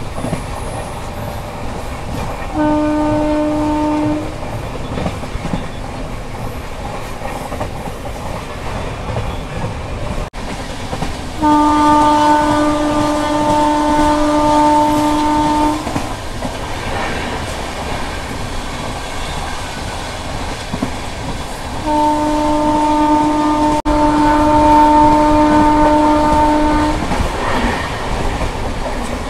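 Indian Railways passenger train running at speed, heard from the coach doorway: a steady rumble and clatter of wheels on rail. A locomotive horn sounds three times, one short blast and then two long steady ones.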